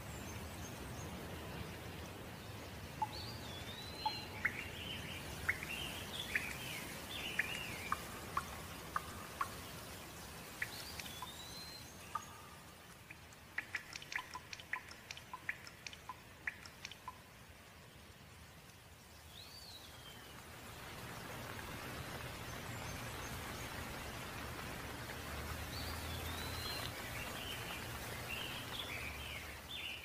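Steady rain with small birds chirping and calling over it, in two spells, near the start and again near the end. Around the middle the rain sound thins and close drops tick sharply several times a second.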